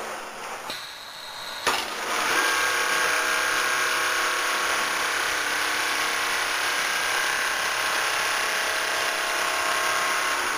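Double-needle quilting machine running as it sews, a steady mechanical whir with a constant whine. It starts about two seconds in, after a couple of sharp clicks, and dies away at the very end.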